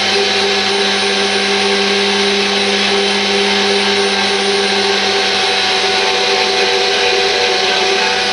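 Electric power tool running steadily at constant speed: a motor whine over a loud, even hiss, typical of paint being stripped off steel pulley brackets.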